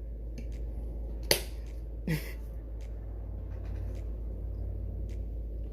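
Two sharp clicks, the first the loudest and the second shorter, about a second apart, then a few faint ticks, over a steady low hum.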